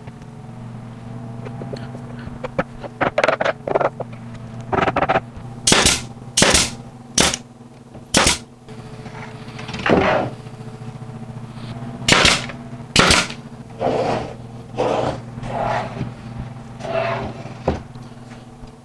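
Brad nailer firing nails into pallet-wood boards, about six sharp shots in short groups, with softer knocks of the boards being handled between them, over a steady low hum.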